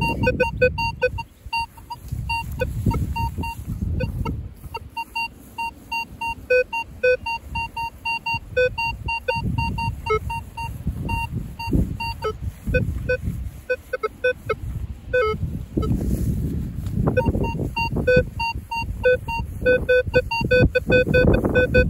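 Minelab Vanquish 540 metal detector giving short repeated beeps at a few fixed pitches as the coil passes over a target. This is a loud, high, wide signal from a large piece of buried zinc. A low rumbling noise runs underneath.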